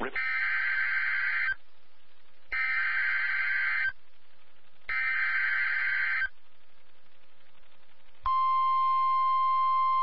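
Emergency Alert System header on NOAA Weather Radio: three bursts of screeching SAME digital data tones, each about a second and a half long with about a second between them. Then, about eight seconds in, the steady single-pitch 1050 Hz Weather Radio warning alarm tone begins and holds, marking the start of a warning.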